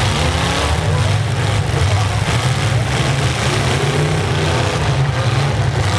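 Demolition derby pickup trucks' V8 engines running loud and steady, revving as the trucks push and ram each other in the arena.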